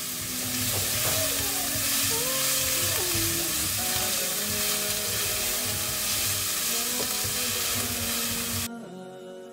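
Diced onion sizzling in hot olive oil in a pot while being stirred with a spatula, with soft background music. The sizzle cuts off abruptly near the end.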